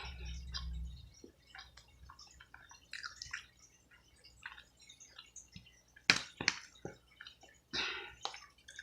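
Close-miked eating sounds: chewing and lip-smacking on saucy barbecue neck bones. Soft, wet mouth clicks come throughout, with a few louder smacks about six seconds in and again near the end.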